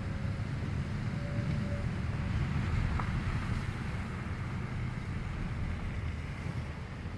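A vehicle driving along a road: a steady low rumble of engine and tyres, with wind noise on the microphone.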